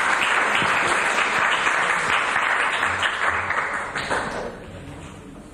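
Audience applauding in a hall, a steady clapping that dies away about four to five seconds in.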